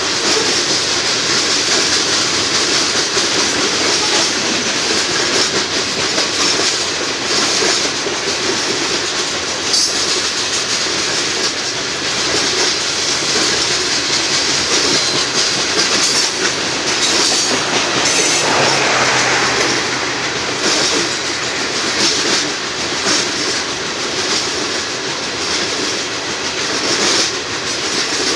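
Union Pacific coal train's cars rolling past steadily: a continuous rumble and rattle of steel wheels on rail, with irregular wheel clicks over the track.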